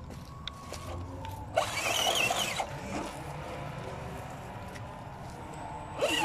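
RGT 86110 RC rock crawler's electric motor and geared drivetrain whirring steadily as it crawls up a rock slope, with a louder burst of noise lasting about a second about a second and a half in.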